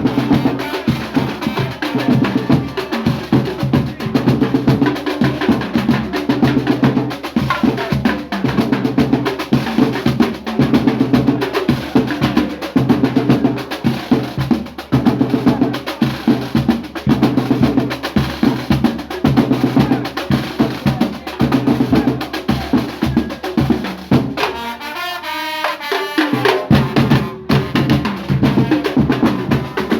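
Loud percussion-driven music with a fast, dense drum beat over a steady bass line. About 24 seconds in, the bass cuts out for roughly two seconds under a sweeping effect, then the full beat comes back.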